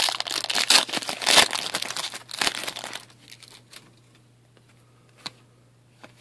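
Foil wrapper of a 2013-14 Upper Deck Team Canada hockey card pack crinkling as it is torn open, for about three seconds. Then much quieter, with soft rustles of the cards being handled and a single sharp tick about five seconds in.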